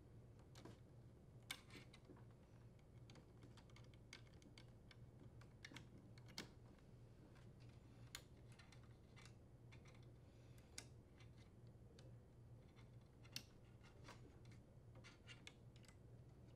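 Faint, irregular small clicks and taps of insulated wire connectors being handled and pushed onto the terminals of an air conditioner's control board, over a low steady hum.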